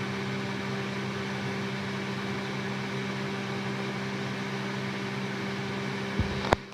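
Steady appliance hum, an even hiss with a low drone, which stops near the end after a thump and a couple of sharp clicks.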